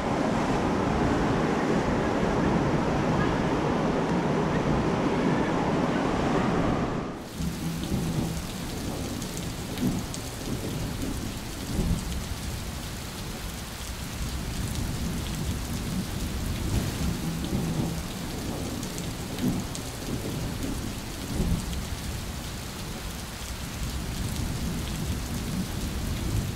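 Storm wind buffeting the microphone, with rain, for about the first seven seconds. Then a sudden cut to steady rain with low rolls of thunder.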